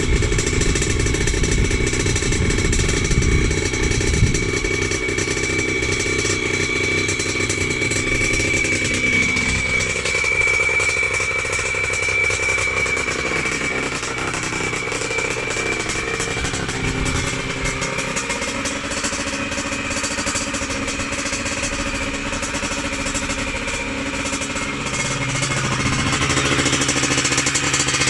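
Freshly rebuilt Yamaha YZ80's two-stroke single-cylinder engine running on its aftermarket cylinder, its engine note shifting several times.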